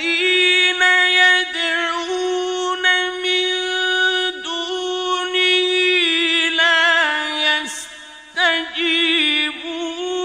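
A man's voice chanting Quranic recitation in a slow, melodic style. He holds long notes with wavering ornaments, with a brief drop about eight seconds in before the chant resumes.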